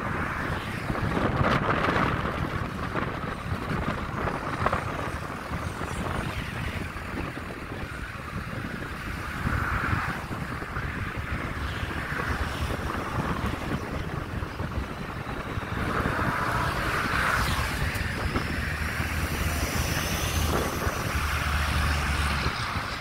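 Wind buffeting the microphone in a moving car, in gusts, over steady road and tyre noise at highway speed. A low steady hum comes in near the end.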